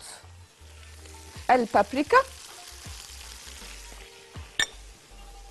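Beef and vegetables (onion, carrot, mushroom, potato) sizzling steadily in a pot, sautéing in fat before any broth is added. A single sharp click comes a little over four seconds in.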